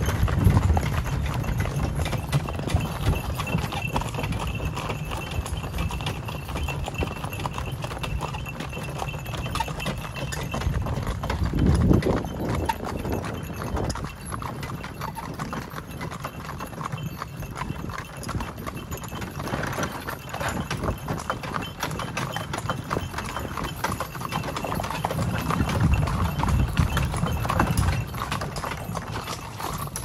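Pair of harnessed horses clip-clopping steadily on a dirt and gravel lane as they pull a horse-drawn cart.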